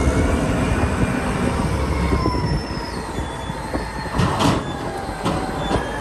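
Caterpillar 992C wheel loader working: a steady deep diesel rumble with thin squealing tones as the raised bucket tips its load of earth into a dump truck. The load pours out with a rushing clatter about four seconds in.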